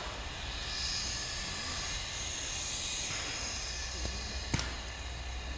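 A single sharp paintball-marker shot about four and a half seconds in, over a steady high hiss and a low rumble.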